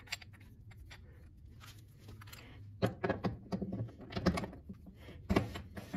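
Cast-iron tailstock of a Craftsman 6-inch lathe being set onto the bed ways and slid into place: a run of light metal clicks and knocks about halfway through, then a single sharper knock near the end.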